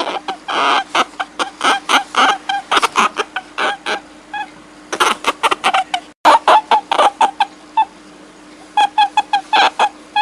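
Rapid series of short, high animal calls, several a second, each a brief pitched cry with overtones. They come in bunches with short pauses between and break off for an instant about two-thirds of the way through.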